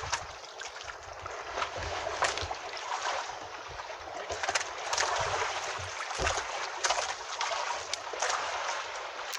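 Water sloshing and lapping against a small outrigger boat, with scattered knocks and clicks from handling on board and a low thump about six seconds in.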